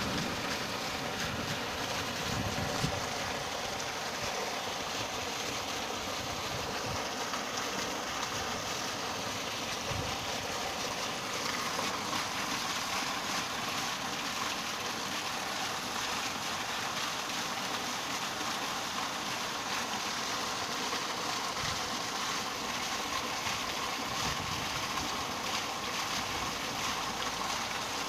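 Steady rain, with a thick stream of runoff pouring off a roof edge into a plastic barrel and splashing: an even rushing hiss.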